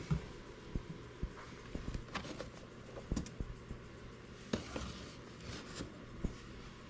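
Quiet room tone with a low steady hum and scattered light clicks and knocks.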